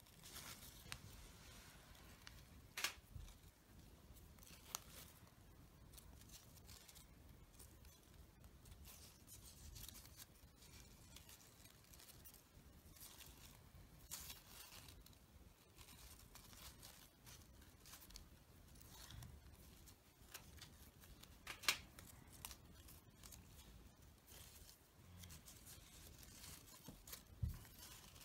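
Faint rustling of fabric rose petals and silk thread handled by hand as the petals are wrapped and bound around the bud, with a few sharp clicks, the loudest about three quarters of the way through.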